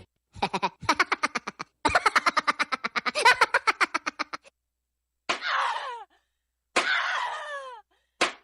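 Preset sound effects played from a live-streaming sound card: a burst of rapid, pitched pulses lasting about four seconds, then three harsh bird-call effects, each falling in pitch, about a second and a half apart.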